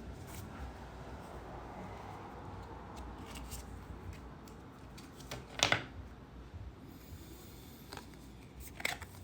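Small oracle cards being handled and flipped over, with light rustling. There is a sharp snap of a card a little past halfway and a few lighter clicks near the end.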